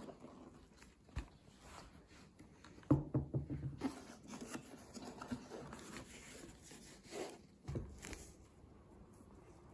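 Cracked plastic headband of a Corsair Virtuoso MAX gaming headset creaking and crackling as it is flexed and handled, with a quick run of small clicks about three seconds in and two more crackles later.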